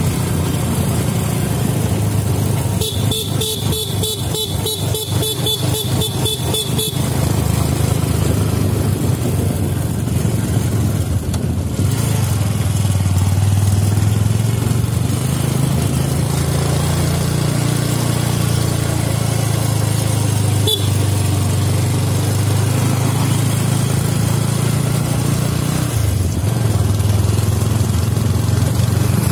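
Motorcycle engine running at road speed, with wind and road noise on the bike-mounted microphone. About three seconds in, a rapidly pulsing high-pitched tone sounds for about four seconds.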